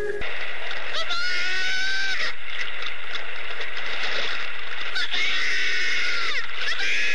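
Electroacoustic sound composition: a steady rushing noise under long, pitched, scream-like cries that hold and then bend downward. There are three of them, about a second in, about five seconds in, and at the very end.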